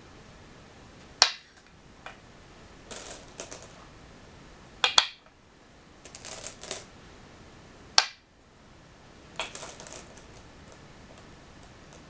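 Go stones placed one at a time on a wooden go board: three sharp clacks about three seconds apart. Between them, stones rattle in a bowl as a hand picks up the next stone.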